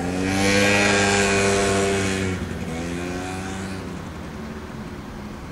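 A motor vehicle's engine passing, its pitch holding steady and loudest in the first two seconds, then dropping and fading away.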